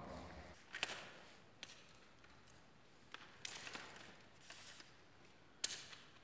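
Faint, irregular footsteps and scuffs on a gritty concrete floor, with a few sharp clicks and short scraping sounds.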